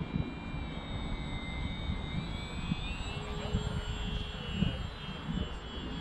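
High electric whine of a small RC plane's brushless outrunner motor (2205 size) and 6040 propeller in flight, its pitch drifting a little as the plane passes overhead. A low uneven rumble of wind on the microphone sits underneath.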